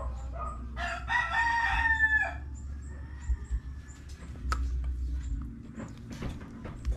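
A rooster crows once, a single call of about a second and a half starting about a second in. A few light clicks follow later.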